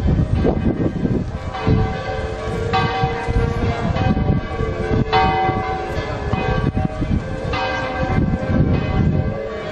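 Church bells ringing, with a fresh stroke about every two to two and a half seconds and each stroke ringing on into the next, over a low rumble.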